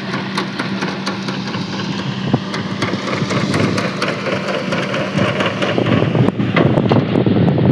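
Diesel engine of an Ajax Fiori self-loading concrete mixer running steadily as a low hum, with frequent small clicks and rattles. In the last couple of seconds the hum fades under louder, rougher noise.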